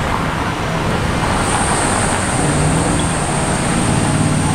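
City road traffic: a steady rumble of passing vehicles, with a thin, high, steady whine that comes in about a second and a half in.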